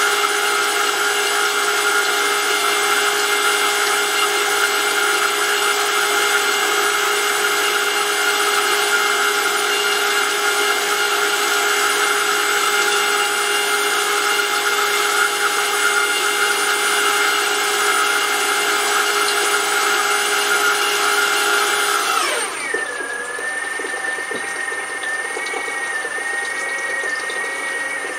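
Brushless electric motor driving a Vivolo gear oil pump, whining steadily at high speed. About 22 seconds in, the whine drops sharply in pitch as the pump steps down to a slow speed, then runs on with a quieter, lower, slightly wavering whine. The step-down is the programmed setting that cycles oil at low pressure after the engine shuts off.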